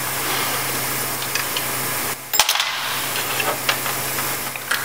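A few light metallic clinks as the thin steel separator plate of a 700R4 transmission's valve body is handled and lifted off the case, over a steady hiss and low hum.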